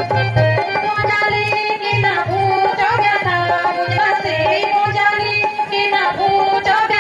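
Music with a steady drum beat under a wavering, ornamented melody, playing without a break.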